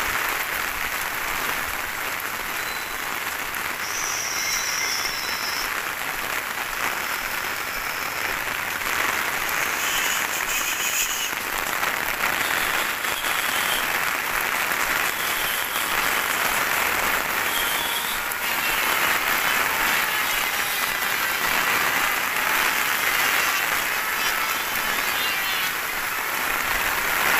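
Heavy rain falling steadily on a wet street, a dense, even hiss with no break.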